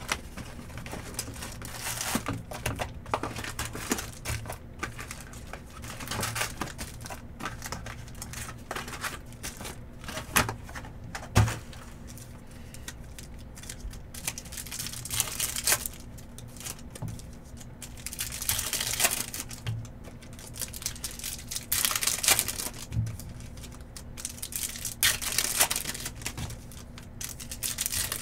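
Foil wrappers of 2023 Bowman baseball card packs being torn open and crinkled by hand, again and again every few seconds, with small clicks and rustles of cards being handled between the tears.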